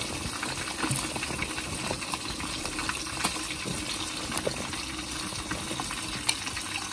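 Seasoned braising liquid boiling steadily in a wok around whole fish: a continuous bubbling hiss with small scattered crackles.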